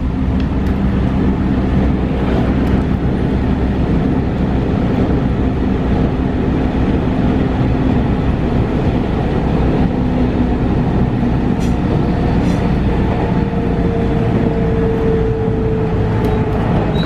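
Electric commuter train running along the line, heard from inside the carriage: a steady loud rumble of wheels on rails with a low motor hum, and a faint whine coming up about two-thirds of the way through.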